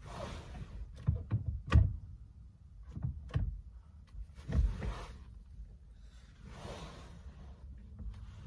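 Handling noises: a series of sharp knocks and clunks with short scraping rustles in between, as parts and tools are handled during steering wheel reassembly.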